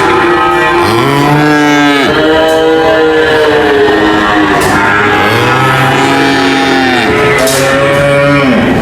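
Cows mooing: long, drawn-out moos that rise and fall in pitch, one about a second in and another about five seconds in, over background music.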